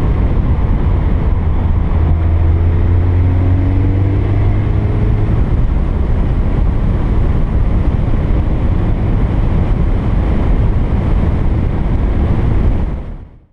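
Mini John Cooper Works driving at speed, picked up by a camera on its bonnet: a steady low wind rumble over the engine and tyre noise, with a faint rising engine note a few seconds in as the car accelerates. The sound fades out near the end.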